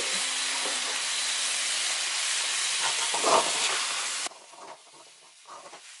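Seafood sizzling in a hot oiled wok as it is stir-fried. The sizzle cuts off abruptly about four seconds in, leaving only faint sounds.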